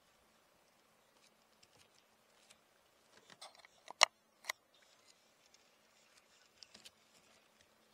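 Several sharp clicks and taps around the middle, the loudest about four seconds in and another half a second later, over a faint steady low hum.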